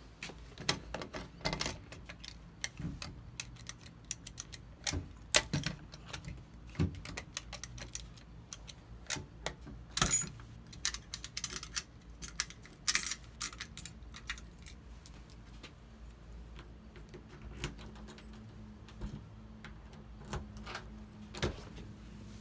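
Keys jangling with many irregular metallic clicks and rattles as a key is worked into a front-door deadbolt.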